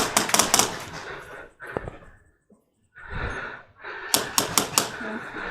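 Airsoft gun firing two short volleys of rapid shots, one right at the start and another about four seconds in.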